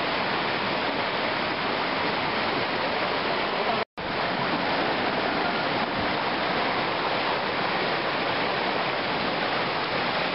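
Rocky river water running and splashing over a small cascade between boulders: a steady rushing noise. It drops out for an instant about four seconds in.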